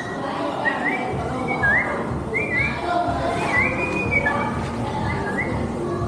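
Background music with a whistled melody: short whistled notes that slide up and hold, repeating over a steady backing.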